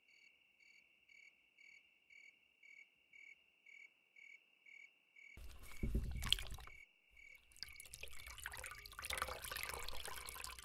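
A cricket chirps steadily, about three chirps a second. About five seconds in, a hand splashes into a basin of water and wrings out a cloth, water pouring and trickling back into the basin.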